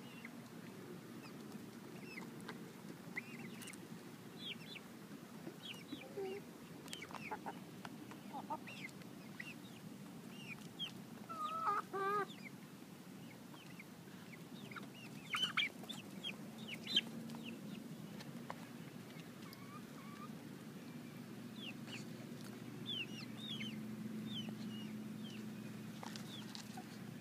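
Backyard chickens clucking and calling as they feed, with scattered short high chirps throughout, one louder drawn-out call about midway and a few sharp calls soon after.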